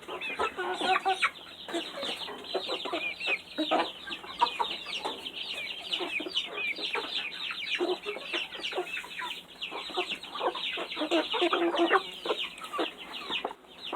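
A flock of young chickens clucking and peeping continuously, with many short calls falling in pitch, as they are fed mealworms.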